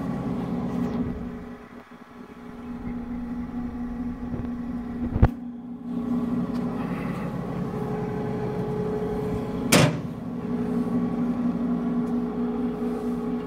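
OMG MB225 double-shaft mixer running, a steady motor and drive hum with a few steady tones. A sharp knock comes about five seconds in, and another knock just before ten seconds.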